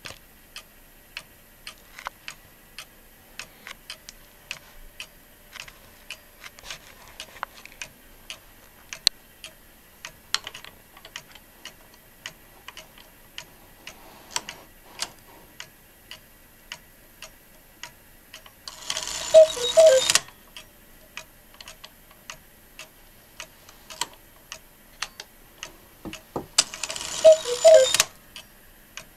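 Beha cuckoo clock movement with echo feature, ticking steadily. Twice, about two-thirds through and again near the end, the bellows pipes give two cuckoo calls each time with a rush of bellows air, the second bout being the echo.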